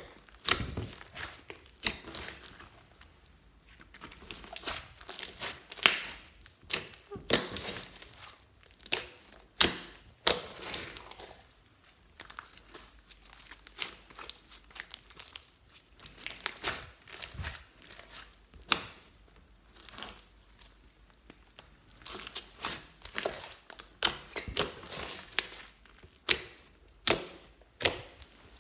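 Clear slime being squished and stretched by hand, with irregular sticky pops, clicks and crackles.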